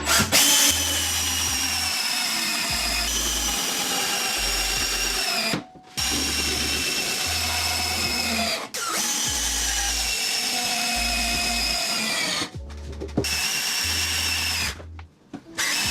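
Cordless drill driving screws in several long runs with short pauses between, the motor's whine sagging in pitch as each screw pulls tight.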